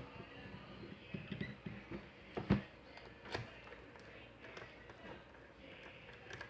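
Scattered small clicks and taps of a lock and lock-picking tools being handled, the loudest about two and a half seconds in.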